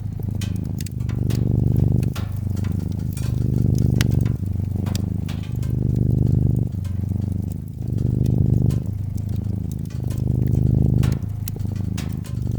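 Domestic cat purring close up, its low rumble swelling and fading with each breath about every second and a half to two seconds, with the irregular pops and crackles of a wood fire over it.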